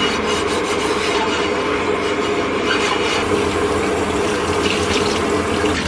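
Kitchen faucet running steadily as a frying pan is rinsed under the stream, water splashing into the metal pan in the sink.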